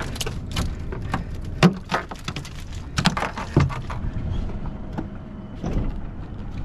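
Wire stone crab trap clanking and rattling as it is handled on a boat's deck, with a run of sharp knocks over the first four seconds. After that it is quieter, with a faint steady hum.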